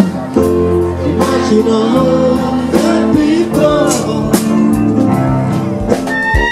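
Song with a singing voice over guitar and drums.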